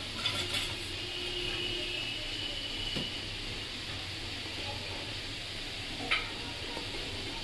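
A hand mixing raw taki fish pieces with spices, sliced onion and green chillies in an aluminium pan: soft wet squishing and rustling, with a few short clicks against the pan, the sharpest about six seconds in, over a steady low hum.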